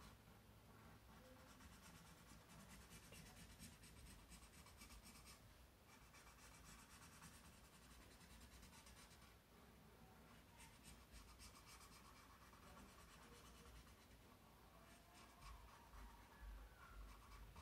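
Faint scratching of a marker tip stroked quickly back and forth on sketchbook paper while colouring in, in runs of strokes with brief pauses.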